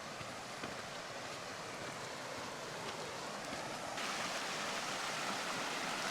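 Rushing water of a mountain river, a steady noise that suddenly becomes louder about four seconds in.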